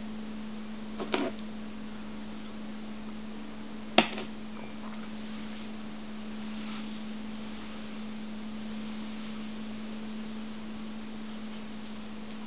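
A steady low electrical hum, with a brief faint rustle about a second in and a single sharp knock about four seconds in.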